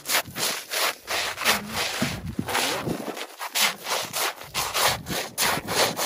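Sneakers scuffing and sweeping snow across the ice of a frozen lake, a quick run of repeated scraping strokes.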